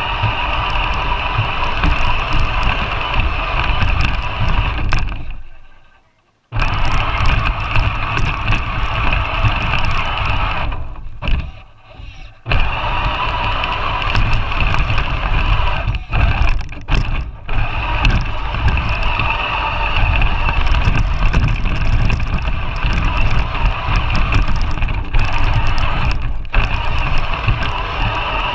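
Battery-powered RC 4x4 truck's electric motor and drivetrain whining steadily as it drives through snow, heard close up from the truck itself. The sound cuts out briefly about five seconds in and dips again about eleven seconds in as the truck stops and starts.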